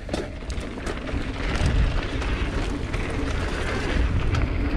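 Wind buffeting the microphone and knobby tyres rolling over dirt as a mountain bike drops into a jump line. There are scattered rattles and clicks from the bike. The rush grows louder over the first second or so and then holds.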